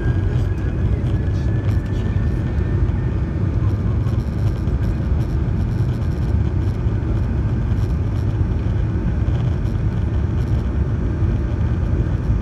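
Steady rumble of a Boeing 737-800's CFM56 jet engines and airframe heard from inside the passenger cabin, with a faint whine rising slightly in the first couple of seconds.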